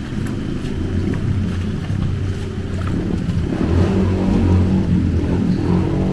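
A motor vehicle's engine drone, a steady low hum that grows louder from about halfway through, over the wash of moving floodwater.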